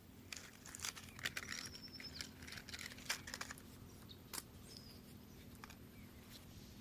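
Irregular crackling and clicking for about four seconds, then dying away, with a short high whistle near the middle.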